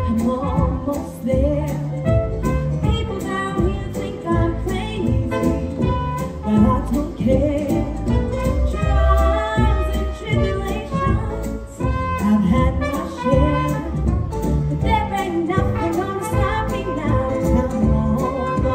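A woman singing a jazzy show tune over a full band backing with trumpet.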